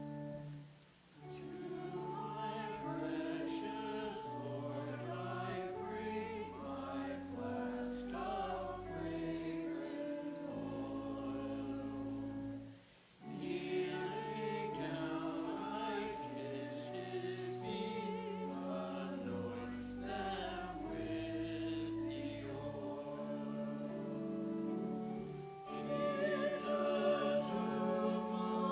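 Choir singing a sacred anthem, several voices holding sustained notes, with two short breaks between phrases and a louder passage near the end.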